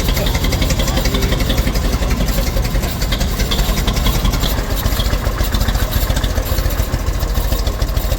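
A car engine running steadily close by, with a fast, even pulse.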